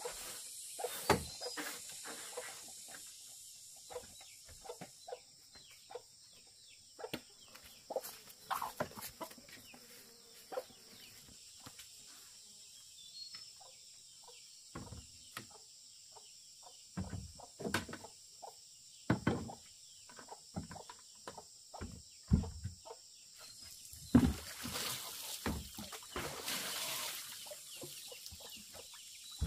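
Chickens clucking, mixed with many irregular short knocks and taps, a few of them much louder.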